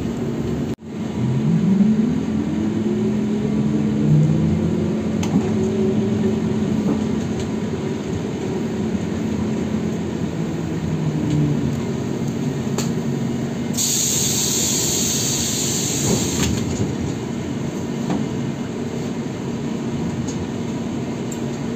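ZiU-682B trolleybus heard from inside the cabin: its traction motor whine rises in pitch as it accelerates, over a steady hum. About fourteen seconds in, a hiss of compressed air lasts two or three seconds.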